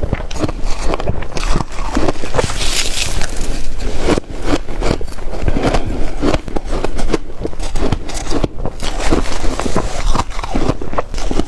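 Close-miked biting and chewing of ice, a dense run of loud crunches with no pause.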